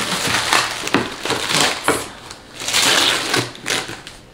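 Gift wrapping paper being torn open and crumpled by hand, in a run of irregular ripping and crinkling bursts.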